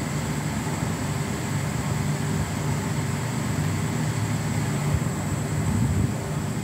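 Steady low mechanical hum with a hiss over it, with a slight swell about five to six seconds in.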